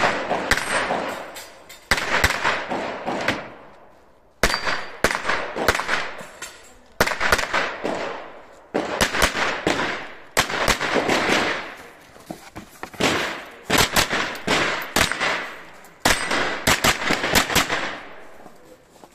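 Pistol-caliber carbine fired in fast strings of several shots at a time, with short pauses between strings as the shooter moves. Each shot rings out with an echo.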